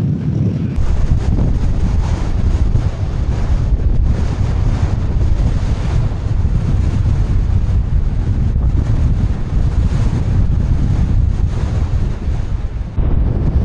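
Gale-force wind buffeting the microphone: a loud, unbroken low rumble that swells and dips with the gusts.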